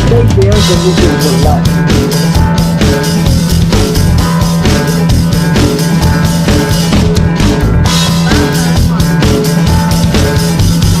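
Background music with a steady rock drum beat.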